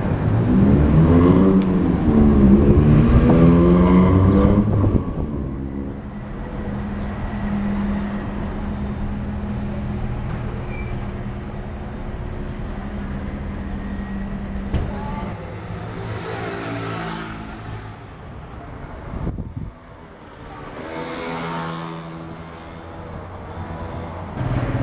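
Street traffic: a vehicle engine revs up and down loudly for the first five seconds, then engines idle with a steady low hum, and more vehicles rev and pull away about two-thirds of the way through and again near the end.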